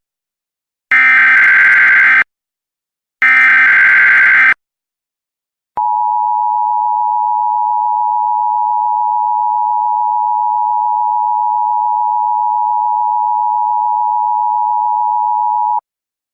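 Emergency Alert System alert: the SAME header's data bursts, three short screeching modem-like blasts with the first already under way, followed after a pause by the EAS two-tone attention signal. The attention signal is a steady dual tone held about ten seconds, then cut off sharply. The sequence signals the start of an emergency broadcast, here an Emergency Action Notification.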